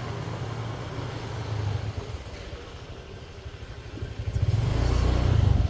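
Small motorcycle engine running while riding, with road and wind noise; it grows louder about four seconds in as the engine speeds up.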